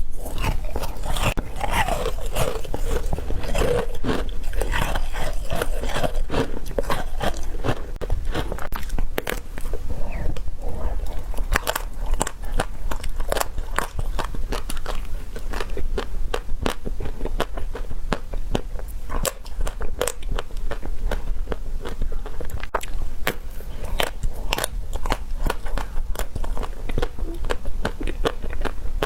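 Close-miked eating: crunchy food being bitten and chewed, with a dense run of sharp crackles and clicks.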